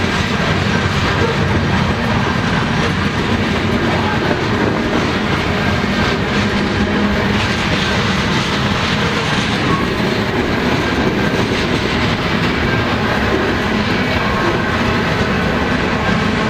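Freight train of covered hopper cars rolling steadily past at close range: continuous wheel-on-rail noise from the passing cars.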